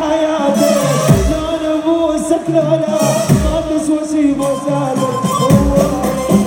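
Live Iraqi pop band playing through a concert PA: drums and percussion keep a steady beat under a held melody line from violins, with a male singer's voice over it.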